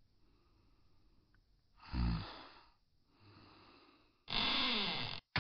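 Breathy, non-speech human vocal sounds: a short, low groan-like sigh about two seconds in and a louder, raspy breath near the end.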